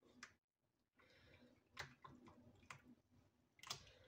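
Near silence: a faint trickle of lye solution poured from a plastic measuring jug into a bowl of oils, with a few light clicks of plastic.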